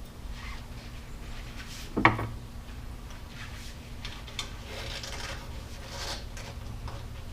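Motorcycle handlebar parts being handled during disassembly: rubbing and scraping, with one sharp knock about two seconds in, over a steady low hum.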